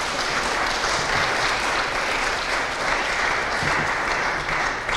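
Audience applauding, with steady clapping from many hands.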